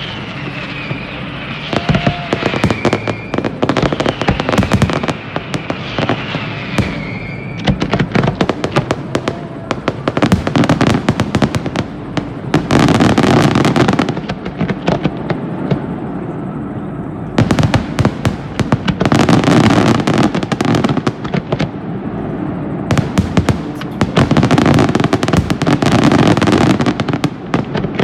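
Fireworks going off: a rapid run of bangs and crackles, with wavering whistles in the first several seconds, then three dense barrages of crackling in the second half.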